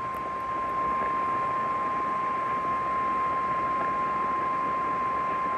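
Emergency Alert System attention tone on AM radio: one long, steady, high beep over radio hiss, announcing a flash flood warning.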